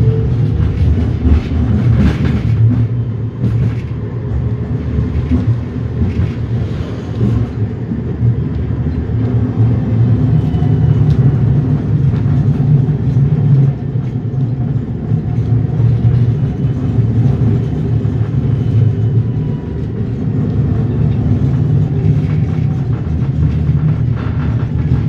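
NF6D low-floor tram running, heard from inside the car: a steady low rumble of wheels on rail, with a faint motor whine that rises and falls now and then and a few light clicks from the track.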